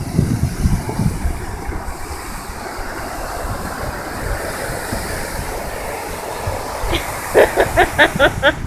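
Ocean surf washing on the beach, a steady rush, with wind buffeting the microphone in the first second. Near the end comes a quick run of about seven short pitched sounds.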